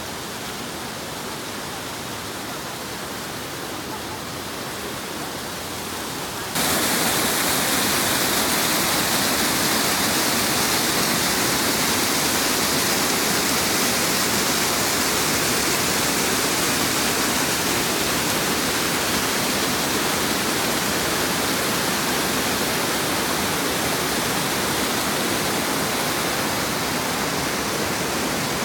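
Steady rush of a waterfall, a dense even hiss of falling water, which jumps suddenly louder about six and a half seconds in.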